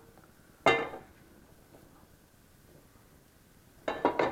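A frying pan clanks down onto the stove about a second in, ringing briefly, followed near the end by a few quick clinks and knocks of kitchenware being handled.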